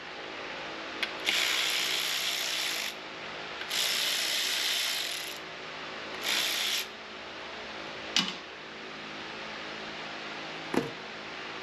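Cordless electric ratchet running in three bursts, the first two about a second and a half each and the last about half a second, backing bolts out of a clutch housing. Two sharp knocks follow near the end.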